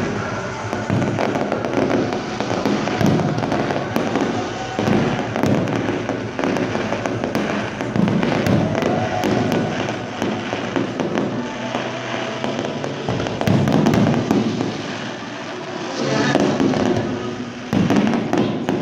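Fireworks display: aerial shells bursting in a rapid, continuous barrage of bangs and crackling.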